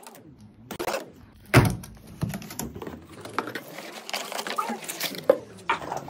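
A cardboard box being cut open and its flaps handled: rustling and scraping, with a loud thump about one and a half seconds in and a few lighter knocks.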